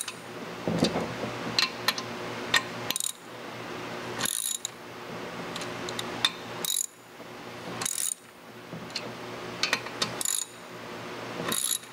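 Hand ratchet clicking as it tightens the bolts of a clutch cover to a flywheel, in short bursts of clicks every second or two as the bolts are run down a part turn at a time.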